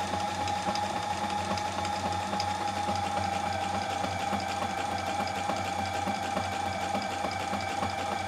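Reliable Barracuda walking-foot sewing machine running on its electric motor, sewing a long straight stitch through two layers of fabric. It makes a steady motor whine with fast, even ticking from the needle and feed mechanism.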